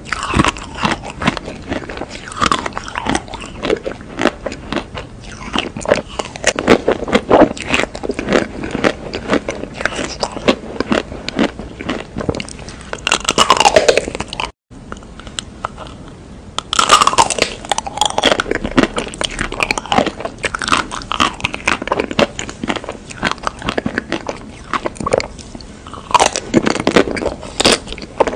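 Close-miked biting and chewing of chocolate-coated ice cream bars, the hard chocolate shell cracking and crunching with each bite. The sound cuts out briefly about halfway through, then the crunching starts again.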